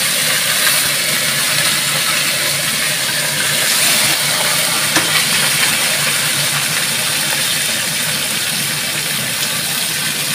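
Hot oil sizzling steadily around a whole gourami fish deep-frying in a pan, with an occasional small pop.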